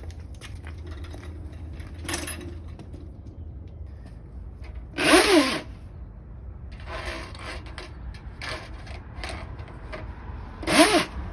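A drain-clearing tool working in a clogged drain pipe, with steady mechanical clicking and scraping. There are two brief, louder bursts, one about five seconds in and one near the end.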